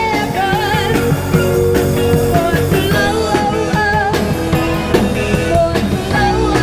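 A live rock band playing loudly, with a woman singing over electric guitar and drums.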